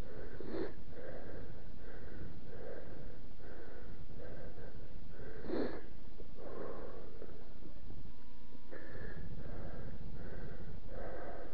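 A man breathing hard and fast, short breaths at nearly two a second, out of breath after hard riding and a crash, with two sharp sniffs, one about half a second in and one about five and a half seconds in. A steady low rumble runs underneath.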